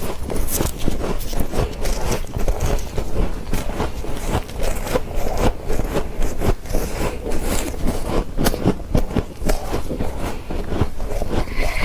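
Soft freezer frost being crunched close to the microphone: a quick, irregular run of small crisp crunches and scrapes.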